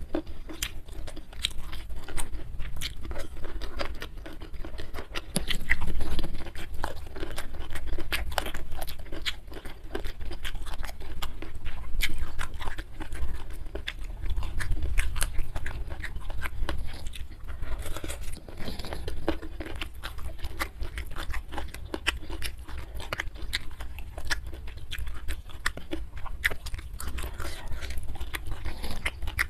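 Close-miked chewing of mouthfuls of a rice meal eaten by hand, with many small wet mouth clicks all through.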